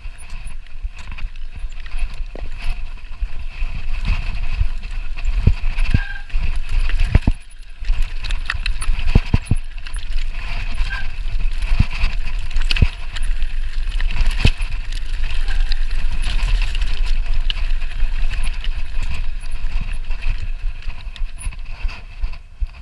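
Mountain bike rattling and clattering down a rocky trail, with frequent sharp knocks of tyres and frame striking stones over a constant low rumble of wind buffeting the microphone.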